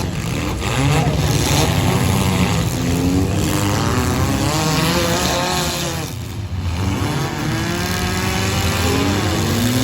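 Several four-cylinder demolition derby cars' engines revving together, their pitches rising and falling against each other as the cars accelerate and back off, with a short lull about six seconds in.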